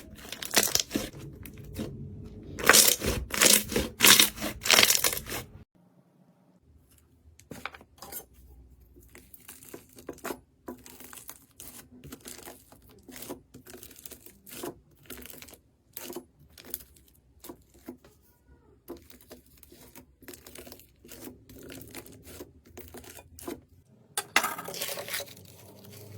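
Crunchy slime being squeezed and pressed, with dense crackling clicks and pops. The clicks are loud for the first five seconds or so, then turn much quieter and more scattered, and grow louder again near the end.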